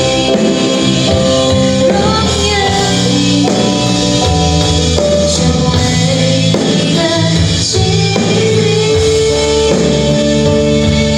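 A song with a singing voice over a band with drums, played through Turbosound NUQ-series loudspeakers.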